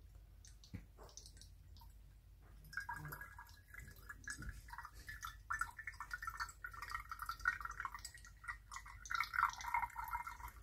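Water trickling from a jug through a small funnel into a homemade model steam boiler made of 2-inch copper pipe, starting about three seconds in and running on steadily as the boiler fills.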